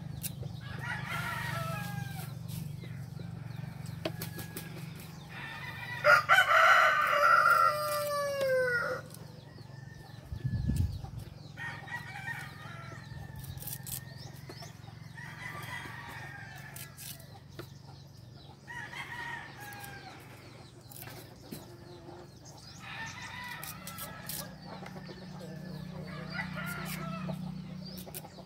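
Domestic roosters crowing. One loud crow about six seconds in lasts some three seconds and falls in pitch at its end, with quieter crows and calls every few seconds.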